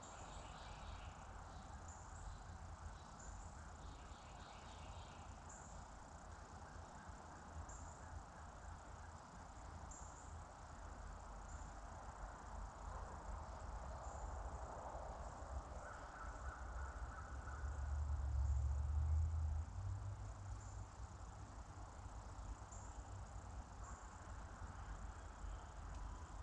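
Quiet woodland ambience: faint insect chirps at uneven intervals over a soft steady hiss, with a low rumble underneath that swells for a couple of seconds about two-thirds of the way through.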